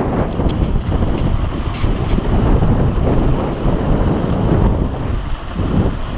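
Wind buffeting the camera's microphone: a rough, gusty low rumble that rises and falls.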